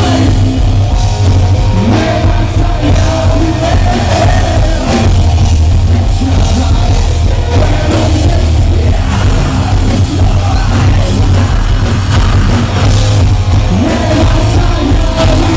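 Live rock band playing loudly through the venue's sound system: electric guitars, bass guitar and drum kit, with a heavy, steady bass.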